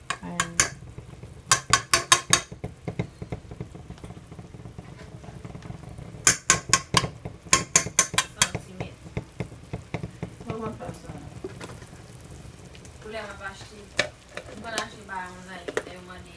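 Butter and garlic-basil sauce sizzling in a metal pot while a fork and spoon stir it, scraping and clinking against the pot in two quick runs of taps.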